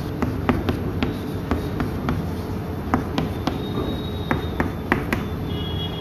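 Chalk tapping on a chalkboard while words are written: an irregular run of sharp clicks, two or three a second, over a low steady hum.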